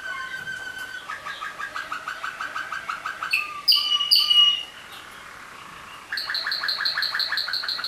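Waterslager (Malinois) song canaries singing in rapid, evenly pulsed rolling trills. A louder run of clear whistled notes comes about halfway through, the song drops back for a moment, then a strong new roll starts near the end.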